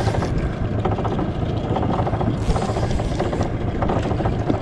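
Small Mercury outboard motor running steadily at low speed, heard from on board, with a short burst of hiss about two and a half seconds in.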